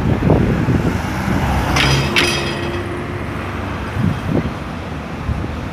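Street traffic: cars and vans driving past with a steady low rumble, and two brief sharp high-pitched sounds close together about two seconds in.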